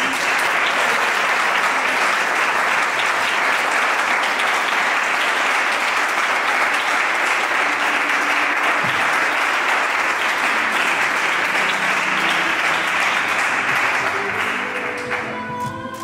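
A crowd applauding steadily after the kiss that seals the couple's vows, dying away about fifteen seconds in. Soft music plays faintly underneath.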